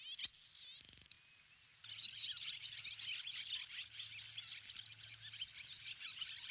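Many small birds chirping at once. A few scattered high calls come first, then a dense, continuous chorus of overlapping chirps from about two seconds in.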